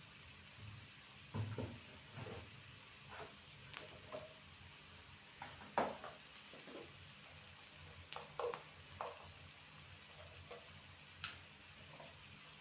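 Vegetables sizzling in oil in a frying pan, stirred with a spatula that knocks and scrapes against the pan a dozen or so times, the loudest knock about six seconds in.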